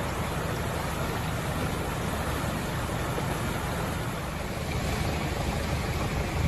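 Fast-flowing muddy flash-flood water rushing, a steady, even noise with a strong low rumble.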